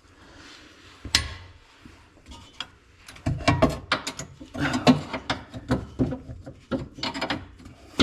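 Metal clinking and clanking of a wrench and a shock absorber's mounting hardware being worked loose: one sharp clink about a second in, then a run of rapid, irregular clanks and rattles from about three seconds on.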